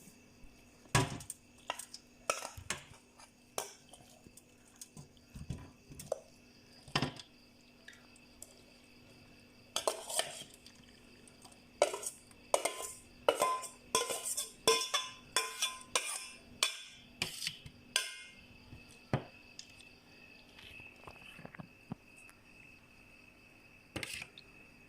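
A spoon and dishes clinking and scraping as the seafood salad is mixed and tipped out of the bowl onto a plate. The knocks come irregularly and are thickest in the middle, some with a short ring.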